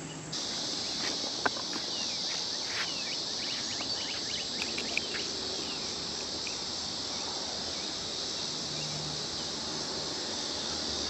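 Steady high-pitched drone of insects singing in summer vegetation, with a few faint short chirps and small clicks over it.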